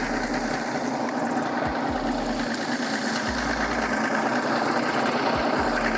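Bass boat's big outboard motor running steadily at low trolling speed in forward gear.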